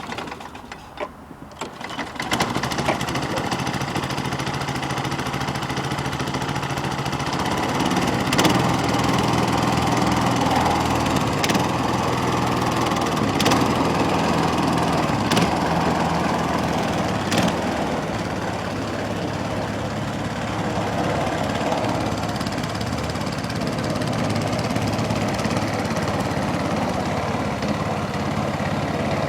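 Partner self-propelled lawnmower's 5 horsepower petrol engine starting on the pull cord, catching about two seconds in and then running steadily. A few short sharp knocks sound in the middle of the run.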